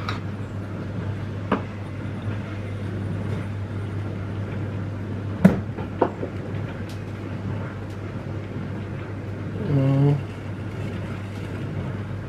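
Coarse salt sprinkled from a small cup over a raw whole chicken, with a few light clicks and taps over a steady low hum.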